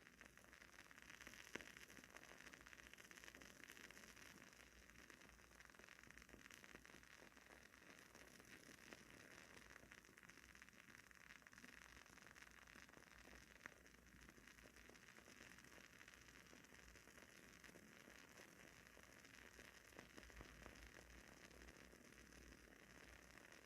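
WoodWick candle's wooden wick burning with faint, steady crackling and tiny pops, like a miniature wood fire, with a couple of sharper pops.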